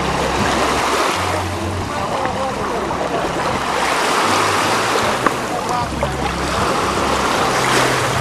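Small sea waves washing onto a sandy shore, the wash swelling about every three seconds, under music with a bass line.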